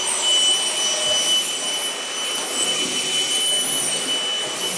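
Vacuum cleaner running steadily with a high whine, cleaning dirt off an RV floor.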